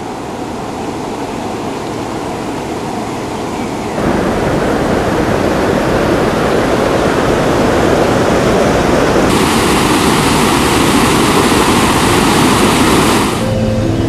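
Rushing water, a steady rush of noise that jumps louder about four seconds in and takes on a bright hiss from about nine seconds until shortly before the end.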